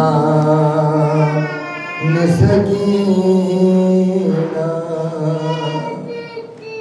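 A man chanting solo and unaccompanied in long, drawn-out wavering notes, with brief breaths between phrases about two seconds and four seconds in.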